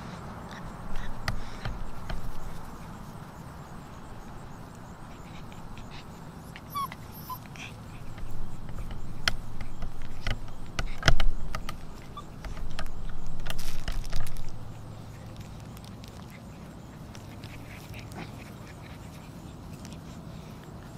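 Alaskan Malamute puppies playing: a few bursts of scuffling and short yips, with scattered sharp clicks; the loudest comes about eleven seconds in.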